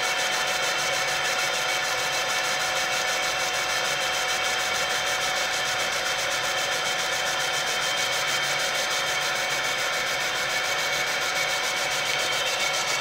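Laser engraving machine running as it marks a pattern into a metal barrel turning in a rotary chuck: a steady, even buzzing hiss with a steady tone running through it.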